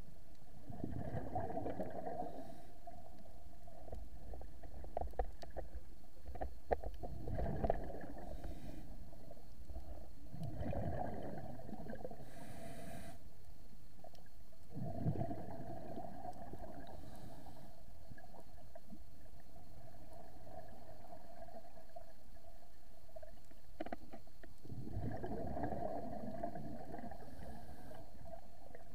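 Scuba diver's regulator exhalations, heard underwater through the action camera's housing: gushes of bubbles lasting a second or two each, coming at uneven intervals, over a steady low hum, with a few small clicks between them.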